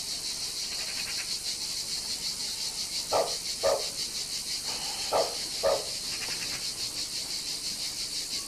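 Steady, high-pitched insect chirring with a fast pulse. Four short, louder calls come in two pairs around the middle.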